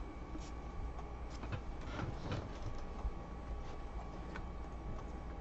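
Faint clicks and light knocks from a plastic football helmet and its facemask being turned over in the hands, over a steady low room hum.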